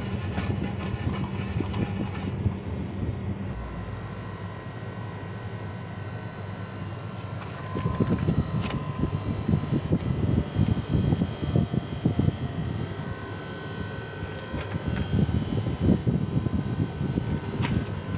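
O General split air conditioner's outdoor unit running with its newly replaced compressor, a steady hum of compressor and condenser fan. From about eight seconds in, the fan's air buffets the microphone in gusty low rumbles.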